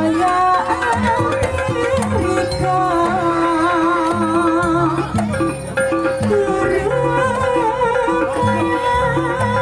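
Traditional jaranan music: a repeating drum pattern under a wavering, vibrato-laden melody line and a steady held tone.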